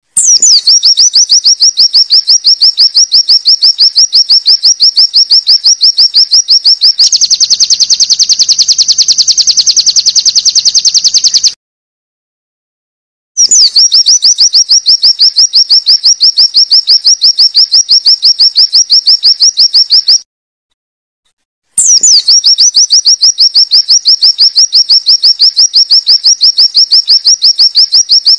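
White-eye (pleci) song: long runs of rapid, evenly repeated high 'wit' notes. Each run opens with a short falling note. In the middle the song turns into a denser, buzzier trill, the 'bren' trill of the ciblek. Runs stop abruptly twice, with brief silent gaps between them.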